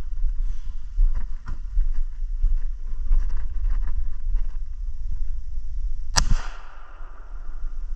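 A single shotgun shot about six seconds in, with a short trailing echo, over a steady low rumble and small clicks.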